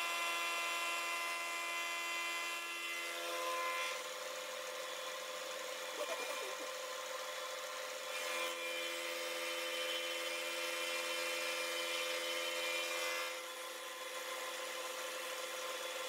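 Milling machine spindle running with a steady whine while its cutter takes a facing pass across a metal block held in the vise. The sound drops a little about four seconds in, picks up again around eight seconds, and drops again about thirteen seconds in.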